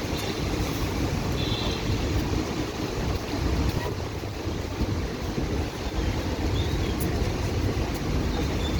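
Steady rushing noise of heavy rain, with wind buffeting the microphone in a low, fluttering rumble.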